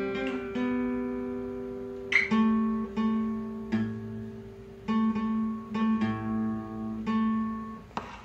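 Guitar playing slow chords, each struck and left to ring, about one a second.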